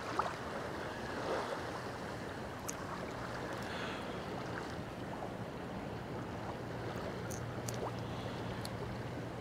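Light wind and small waves lapping at a lake shoreline, a steady soft wash, with a few faint clicks.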